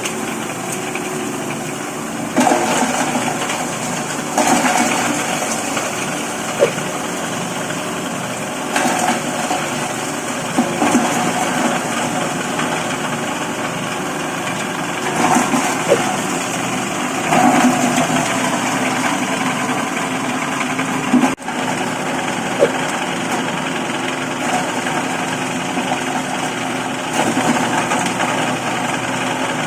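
Stainless steel dry-bread grinding machine running steadily, with louder rough grinding stretches every few seconds and a few sharp clicks.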